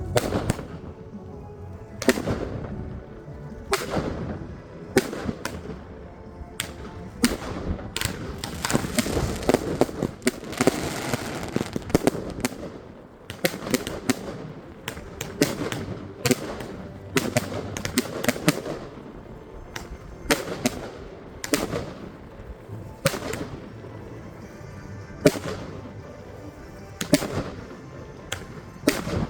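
Consumer fireworks going off: a firework bomb tube and battery cakes firing sharp bangs one or two a second, with a stretch of dense crackling about eight to twelve seconds in.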